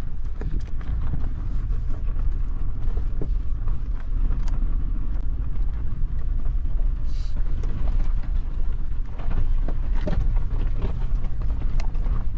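Suzuki Jimny driving over a rough, unpaved mountain road: a steady low rumble with scattered knocks and rattles from stones and bumps.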